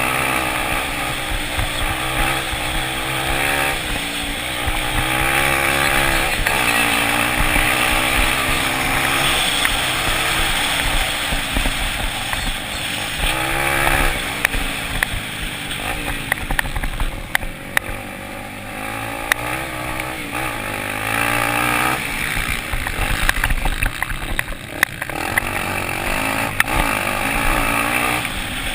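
Several velocross motorcycles racing, their engines revving up and down through gear changes and corners, with more than one bike heard at once.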